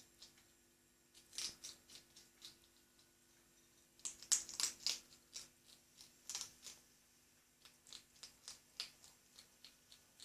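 Hedgehog eating cat food: irregular runs of sharp chewing clicks, loudest about four to five seconds in.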